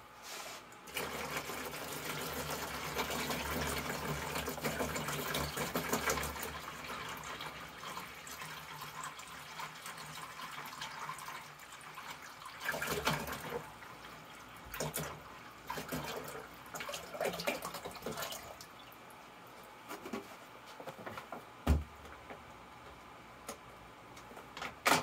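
Water poured from a plastic gallon jug into an empty plastic tote reservoir, a steady splashing stream that turns into uneven spurts as the jug empties. A couple of light knocks follow near the end.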